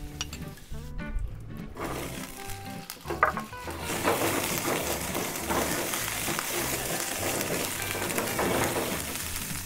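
Butter sizzling in a hot frying pan, growing much louder about four seconds in as pretzel dumplings are laid in and turned through it. Background music with a steady bass line plays underneath.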